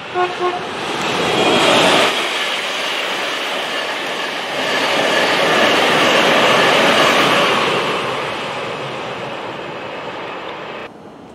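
Electric passenger train giving two short horn toots as it approaches, then rushing through the station, its wheel and air noise swelling twice and slowly fading before cutting off abruptly near the end.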